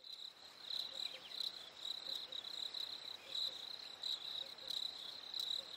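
Crickets chirping in a faint, steady high trill that pulses evenly.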